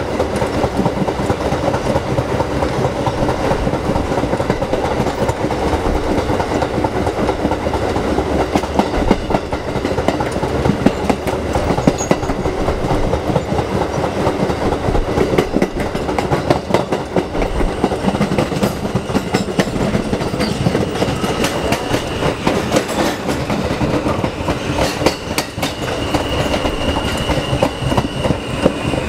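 R160 subway train running along the track, heard from the open end door between cars: a steady loud rumble of wheels on rail, dense with rapid clicking over the rail joints and rattling of the car-end gear. A thin high-pitched tone comes in past the middle and grows stronger near the end.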